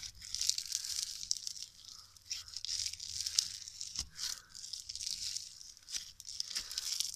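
Crunchy orange snow slime squeezed, stretched and pulled apart by hand, giving a continuous fine, irregular crackling and tearing sound.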